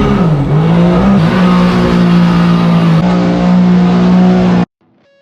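Supercharged Sea-Doo 260 hp RXP engine of a mini jet boat running hard: the pitch dips and climbs in the first second, then holds steady at high revs, and the sound cuts off suddenly near the end.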